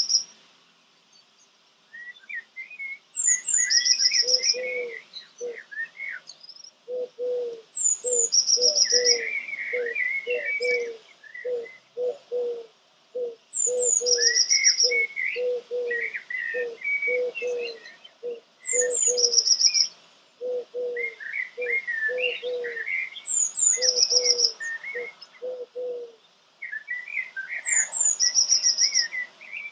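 Birds singing in repeated phrases. Each phrase, recurring every few seconds, has high falling chirps and a fast trill over lower warbling and rapid, lower-pitched notes.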